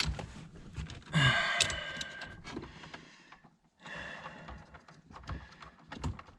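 Hands working plastic dash parts and a control cable: scattered small clicks and knocks, with a longer rushing noise about a second in.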